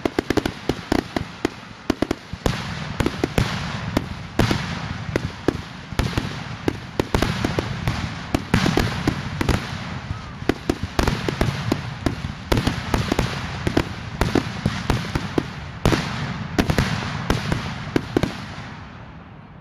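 Rapid barrage of aerial firework shells bursting, with several sharp booms a second over a continuous crackle. The barrage thins out and fades away near the end.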